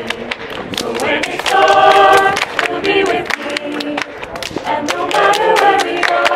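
A group of voices singing a cappella over steady hand claps from a partner clapping game, the sung notes coming in two phrases, about one and a half seconds in and again near the end.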